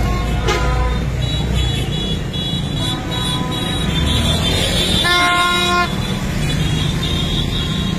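Motorbike and car traffic rumbling steadily in a street procession. A vehicle horn sounds once, for under a second, about five seconds in.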